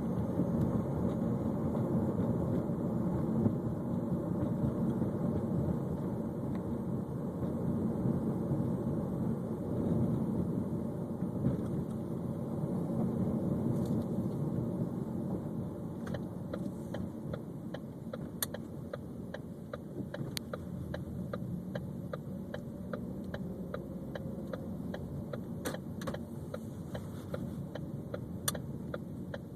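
A 2013 Ford Focus running, with a steady low rumble. From about halfway on, light irregular clicks and rattles come through, which is the grinding and rattling noise the car is being recorded for.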